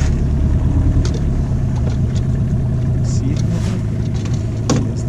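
Outboard motor running steadily, pushing the boat slowly across the water, with a short knock near the end.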